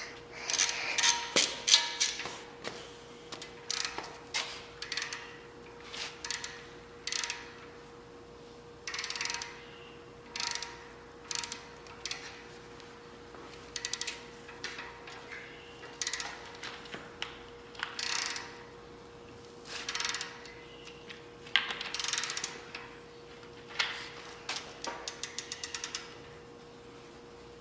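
Ratchet wrench clicking in short bursts, again and again, tightening the windage tray fasteners on an LS V8. Near the end comes a quick, even run of clicks.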